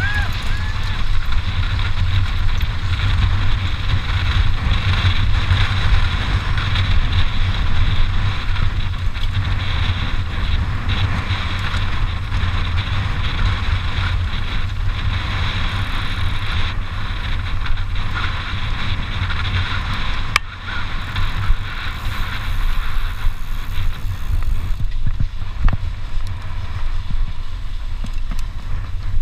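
Wind rushing over the microphone of a handlebar-mounted action camera as a mountain bike rides fast, with knobby tyres rolling on a dusty dirt road and scattered rattles and clicks from the bike.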